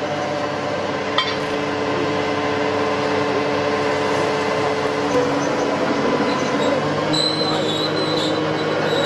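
Diesel engine of a truck-mounted borewell drilling rig running steadily, a loud continuous mechanical drone. Its tone changes about five seconds in and again around seven seconds.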